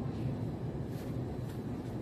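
Steady low hum, with a faint light knock about halfway through.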